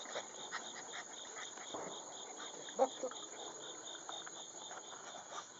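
Steady chorus of insects chirping, pulsing several times a second, with scattered soft clicks and rustles and one brief louder sound about three seconds in.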